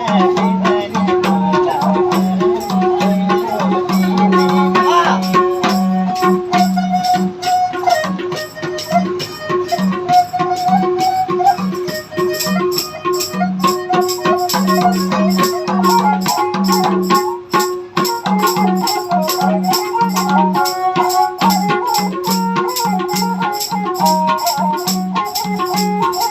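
Nepali folk instrumental music: a sustained, wavering melody line over a pulsing low drum beat and a steady, fast shaking rattle.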